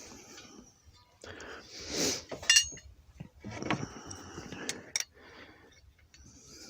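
Metal tools and propane line fittings being handled, giving a few sharp clinks about two and a half seconds in and again near five seconds, between stretches of rustling noise.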